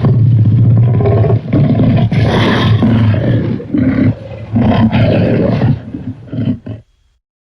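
Designed dinosaur roar for an Acrocanthosaurus, mixed from film creature sounds and big-cat roars: a run of loud, deep roars and growls in several long phrases that stop about seven seconds in.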